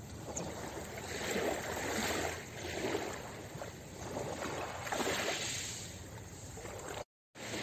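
Small sea waves washing in and out over a pebble shore, with two gentle swells of hissing, trickling water about 2 and 5 seconds in. The sound cuts out briefly near the end.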